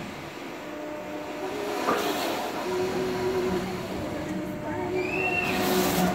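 Swinging Viking-ship amusement ride rushing past with a whoosh about 2 s in and again near the end, over a steady mechanical hum. A short high rising-and-falling sound comes shortly before the last whoosh.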